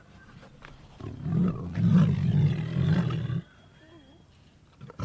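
Tiger roaring: one low, loud roar starting about a second in and lasting a little over two seconds, then stopping.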